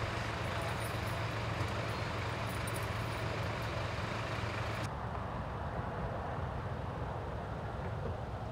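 Steady low hum of an idling vehicle engine, with a hiss above it that cuts off abruptly about five seconds in while the hum carries on.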